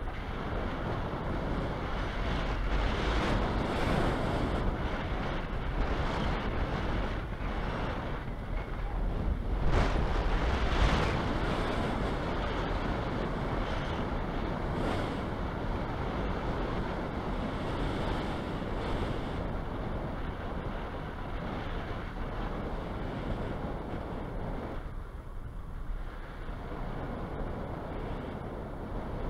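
Airflow rushing over a camera mounted on a hang glider in flight, buffeting the microphone as steady wind noise. It surges louder about ten seconds in and eases briefly near the end.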